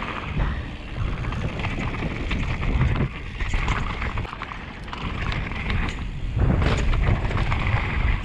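Mountain bike descending a loose, stony dirt trail: wind rushing over the microphone with the tyres crunching on gravel and the bike clattering over bumps, louder about six and a half seconds in.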